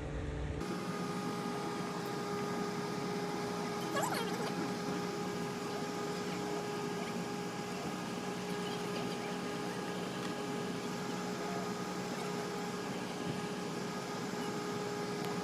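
A steady machine hum with a constant whine and its overtones, unchanging in pitch, with a few faint brief noises on top.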